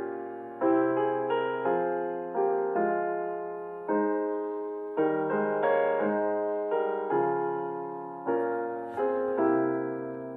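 Slow, gentle piano music: chords struck about once a second, each ringing and fading before the next.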